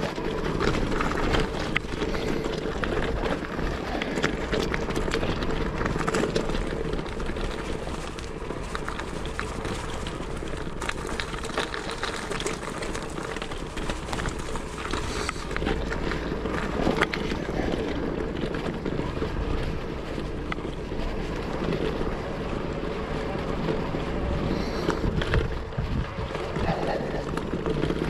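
Steady wind rush over an action camera's microphone while riding, mixed with tyre and road noise and scattered short clicks and knocks.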